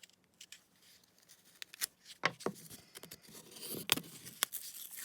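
Plastic packaging of a sanding-stick set being pried and worked open by hand: scattered sharp clicks and short scrapes. The package is resisting.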